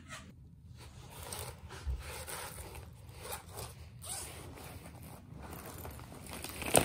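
Zipper on a mesh zip pouch being worked, with rustling and light scraping as the pouch is handled and emptied onto a bed. A sharp click near the end.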